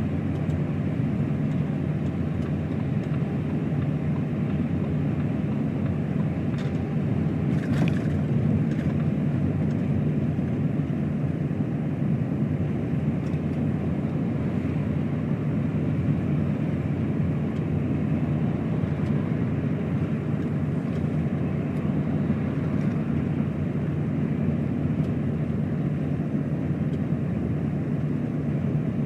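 Steady drone of a truck travelling at motorway speed on a wet road: engine hum with tyre and road noise, and one brief hiss about eight seconds in.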